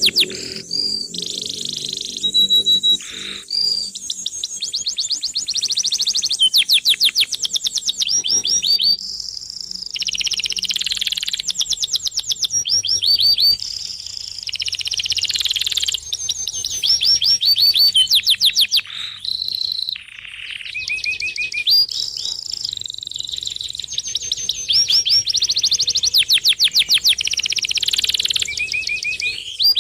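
A dense chorus of many birds chirping and calling at once, with rapid runs of high, quick repeated notes coming in bouts of a second or two.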